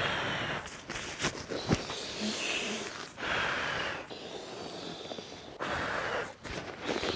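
Folding field cot being put together by hand: several short hissing bursts of hard, effortful breathing and handling noise, with a few sharp clicks from the frame.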